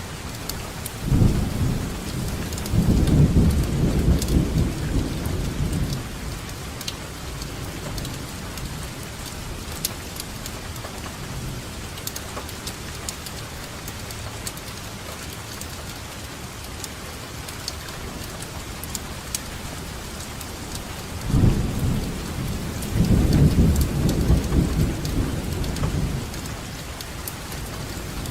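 Steady rainfall with fine drop patter, and two long rolls of low thunder rumbling for about five seconds each, one about a second in and the other past the twenty-second mark.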